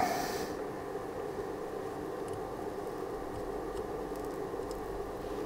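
A steady low hum from a small motor runs throughout. At the very start there is a sharp tap followed by a short hiss lasting about half a second.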